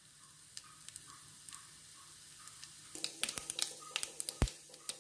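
Mustard seeds and urad dal frying in hot oil: a faint sizzle, then from about three seconds in the mustard seeds begin popping in quick, sharp crackles, one pop louder than the rest near the end. This is the seeds spluttering, the sign that the tempering oil is hot enough.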